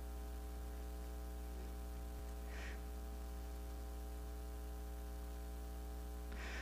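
Steady electrical mains hum with a faint hiss, a low buzz with evenly spaced overtones; two faint short puffs of noise, about two and a half seconds in and near the end.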